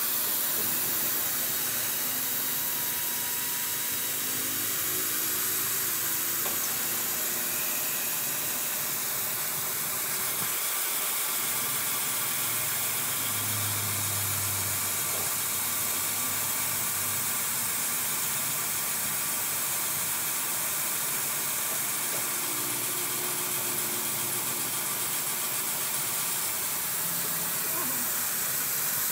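Tool-post grinder with a small abrasive wheel grinding the bore of a drive-shaft yoke spinning in a lathe chuck: a steady high hiss of grinding over the running lathe, which stays even throughout.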